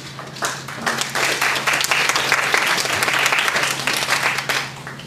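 Audience applauding. The clapping starts about half a second in, swells, and dies away shortly before the end.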